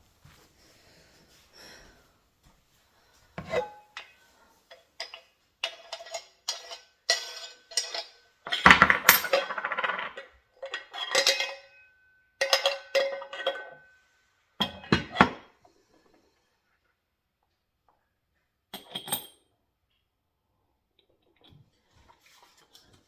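Metal parts of a KitchenAid meat grinder attachment clinking and clanking as they are handled and set down: a run of sharp knocks with a brief metallic ring in the middle, then a pause and one last pair of clinks.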